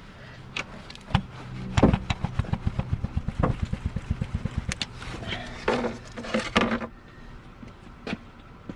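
Knocking on a 1997 Lexus ES300's starter motor to work it loose where it is stuck to the transmission: a few separate sharp knocks, then a fast, even run of knocks for about three seconds.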